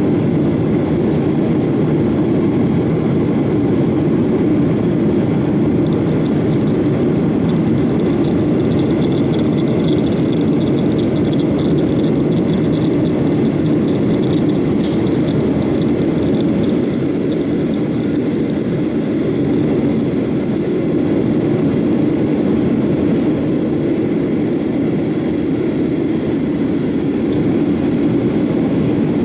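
Steady cabin noise of a Boeing 737-800 climbing out after takeoff, heard from a window seat over the wing: its CFM56-7B engines and the rushing air give a dense, low, even roar. A faint high whine rides on top through the middle part.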